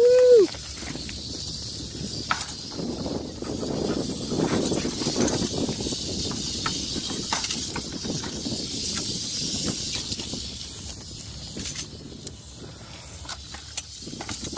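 Rattlesnake buzzing its rattle, a steady high hiss that holds on without a break, the defensive rattle of a snake just caught in tongs. Boots crunch on gravel around the middle, with scattered clicks of stones.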